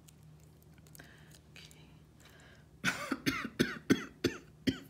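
A rapid fit of about seven coughs, roughly three a second, starting nearly three seconds in.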